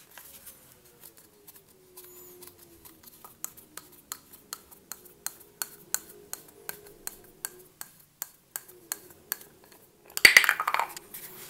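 Light, sharp clicks of small metal and plastic parts being handled in an opened electric hammer drill's gearbox, a few a second, with a louder rustling handling noise about ten seconds in.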